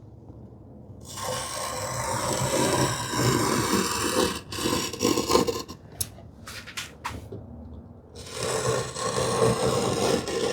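Marking knife scraping along plywood as it scores a cut line, in two long passes with a few sharp clicks in between, about a second in and again near the end.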